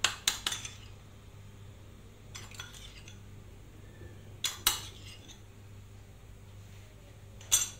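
Metal spoon clinking against a small bowl in a few short bursts of clinks, as marinade is scooped up and spooned over a raw stuffed chicken.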